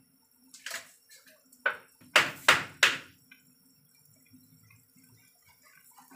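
Beef and vegetable soup bubbling at a boil in a pot, with faint scattered pops. In the first three seconds a run of five sharp knocks or clinks, the loudest sounds, stands out over it.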